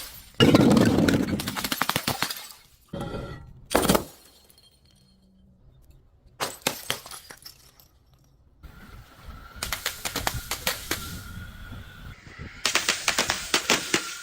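Glass breaking and crunching in several separate bursts of crackling and clinking. The loudest burst is about half a second in, and there is a quiet stretch from about four to six seconds in.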